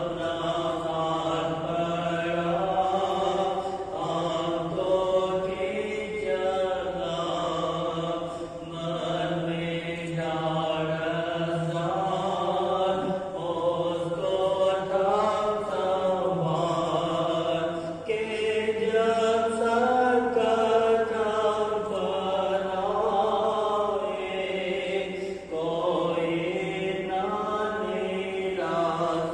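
A group of voices singing a slow hymn together, with a steady chant-like melody.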